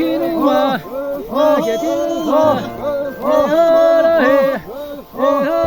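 Background music with a male voice singing.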